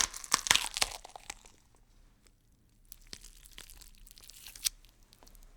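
Crunching, crackling clicks that thin out and stop about a second in; after a pause, a fainter crinkling crackle that ends in one sharp snap.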